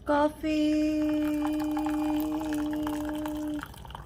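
A woman's voice holding one long, steady note for about three seconds, with coffee faintly pouring from a French press into a mug beneath it.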